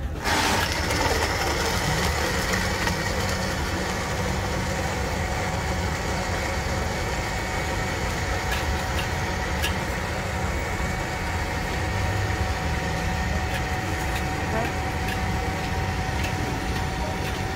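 Electric countertop blender switched on and running steadily, a constant motor whine with the jug's contents churning.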